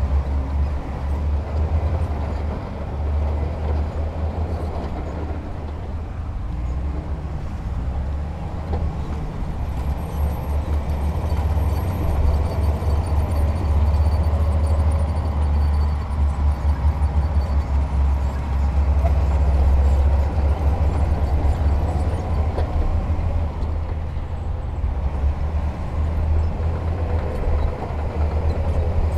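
Diesel engine of a heavy earthmoving machine running, a deep continuous rumble that swells and eases.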